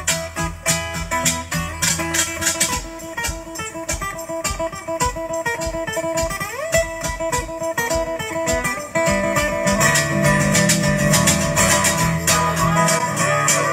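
Live band instrumental: a guitar solo of quick picked notes over hand percussion. About nine seconds in, the playing gets louder and fuller, with low notes added.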